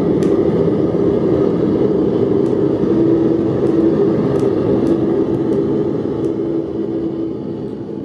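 Gas burner firing a homemade blast furnace, running steadily at 10 psi, a continuous low rush of flame with a few faint ticks. It gets slightly quieter near the end.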